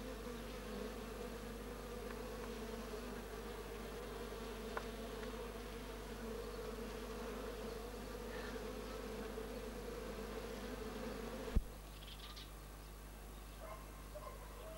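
Honeybees buzzing at a hive entrance, a steady hum that stops abruptly with a click near the end.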